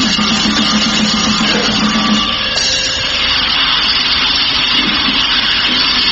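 Loud, dense grindnoise music: a harsh wall of distorted noise, with a low droning note that drops out a little over two seconds in.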